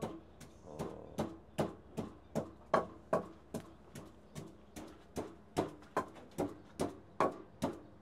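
Wooden pestle pounding in a clay mortar, a steady run of hollow knocks about two to three a second, grinding soaked rice into a paste.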